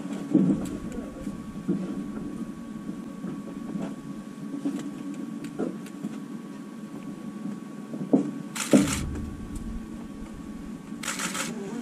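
Scattered knocks, thumps and rustles inside the cabin of a parked de Havilland Canada Twin Otter with its engines shut down. There are two short hissing bursts of noise, one about two-thirds through and one near the end, over a faint steady high tone.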